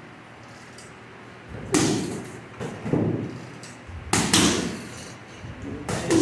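Punches landing on a heavy punching bag: about four hard hits, spaced a second or more apart.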